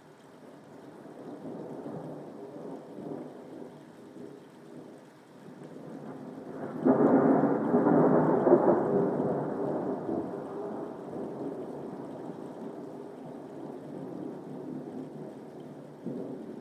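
Thunder during a rainstorm. A low rolling rumble builds, then a much louder clap about seven seconds in rolls away slowly over the following seconds, and a smaller rumble begins near the end, all over steady rain.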